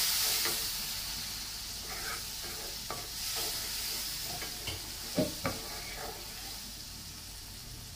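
Onion and spice masala sizzling in a karai just after a splash of water, the sizzle gradually dying down. A wooden spatula stirs it and knocks against the pan a few times, most loudly twice a little past the middle.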